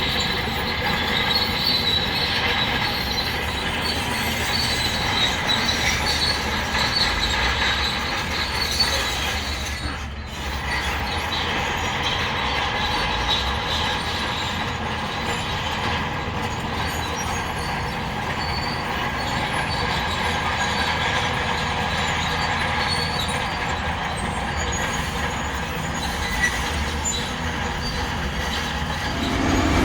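Crawler bulldozer working: its diesel engine runs steadily while its steel tracks give off a continuous high-pitched metallic squeal.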